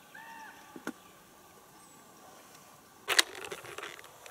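Handling of a fabric rod case in a boat: a loud rustling rasp lasting most of a second, about three seconds in. A brief high chirp comes near the start and a single small click just under a second in, over a quiet background.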